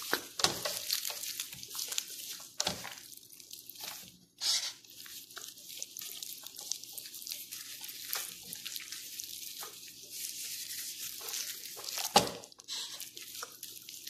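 Plastic-gloved hands massaging marinade into a raw whole chicken: irregular wet squelching and glove rustling, with a few louder slaps, the loudest about twelve seconds in.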